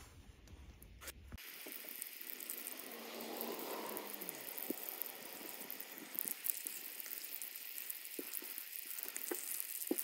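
Water running from a garden hose and splashing onto wet pebbled ground, a steady hiss that starts about a second and a half in, with a few light ticks over it.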